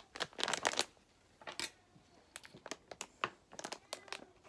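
Plastic food packaging crinkling as it is handled, in a dense burst near the start and then scattered crackles.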